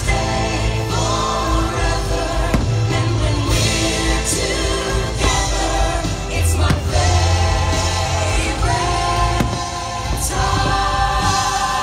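Fireworks show soundtrack of music with a choir singing, with the sharp bangs of fireworks shells bursting several times through it.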